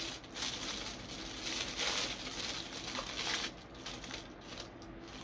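Paper wrapping crinkling and crumpling as it is pulled off an action figure, in uneven rustles that come and go.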